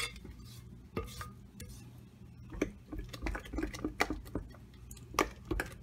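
Scattered light clinks and taps of utensils against a glass stand-mixer bowl of sweet potato pie filling, over a faint steady low hum.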